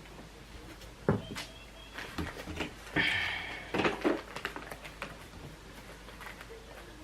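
A few short knocks and rustles of dishes and food containers being handled, clustered in the first half, with a brief scratchy rustle about three seconds in.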